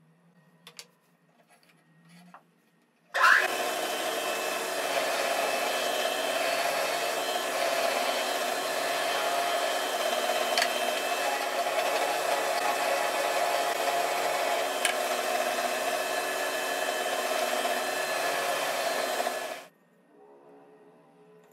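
Woodworking machine with a horizontally mounted chuck and a 3/8-inch drill bit boring into a pine strip. The motor starts about three seconds in, runs steadily, and stops abruptly near the end.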